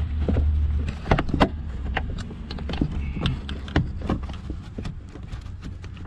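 Hard plastic interior trim panel being pressed and worked against its clips: a string of irregular clicks and taps, with a low rumble during the first second.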